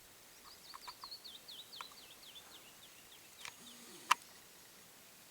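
A small bird calling in a fast run of short, high, down-slurred notes that drift slightly lower and space out over about three seconds. A few sharp clicks come in among them, the loudest about four seconds in.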